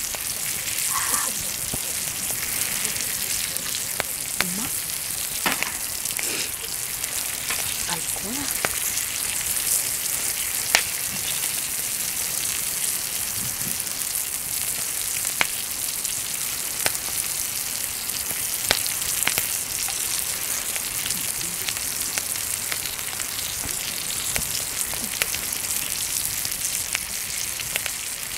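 Wood fire in a fire-pit grill crackling, with scattered sharp pops over a steady hiss, and meat sizzling on the grill grate.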